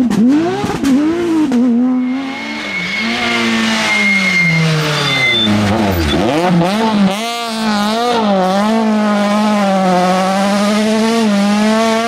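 A Porsche 911 rally car's flat-six engine accelerates hard out of a hairpin, its pitch rising and falling through gear changes, with a thin high squeal, then drops in pitch as the car goes off. About seven seconds in, a Citroën C2 rally car's four-cylinder engine revs hard through the same hairpin, its pitch wavering up and down.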